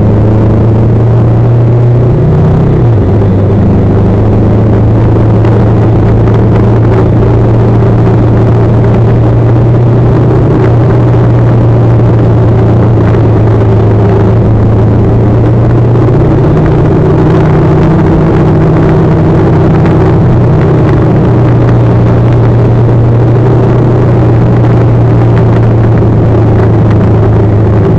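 Motorcycle engine running steadily at cruising speed, heard from the moving bike along with wind and road noise. The engine note shifts briefly about three seconds in.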